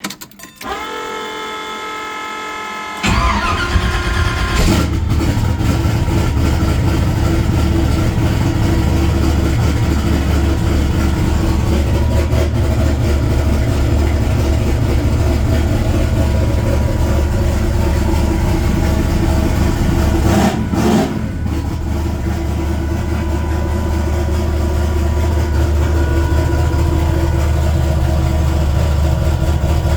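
A car engine fitted with Terminator X fuel injection is started: a steady whine for about two seconds, then the engine catches about three seconds in and settles into a loud, steady idle.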